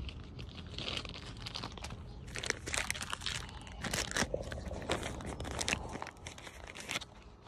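Thin plastic bag crinkling and rustling in irregular crackles as a CDI ignition module is worked out of it by hand.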